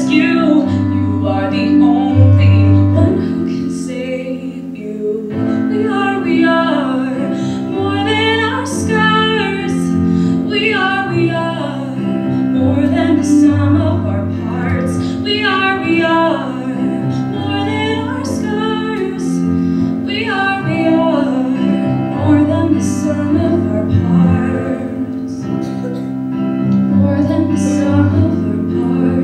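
A female solo singer singing a slow song into a microphone, accompanied by piano chords played on an electric keyboard.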